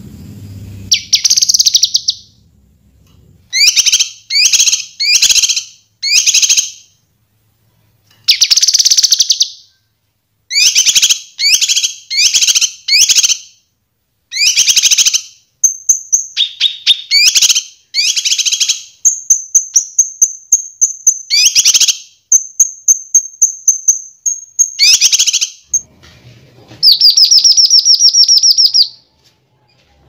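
Kinoi songbird singing a loud, varied song of short chirping phrases repeated in quick succession, with a thin sustained high whistle in the middle and a fast trill near the end.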